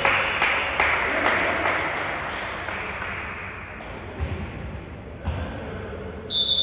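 Basketball game in a gym: a burst of crowd noise and knocks that dies away over a few seconds, then two low thuds of a basketball bouncing, and near the end a steady high-pitched buzzer starts.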